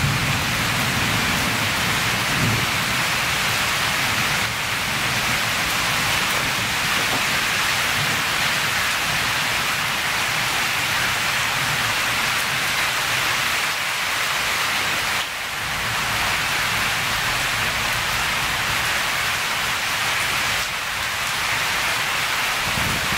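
Steady rain falling during a subtropical storm, with a low thunder rumble dying away in the first couple of seconds.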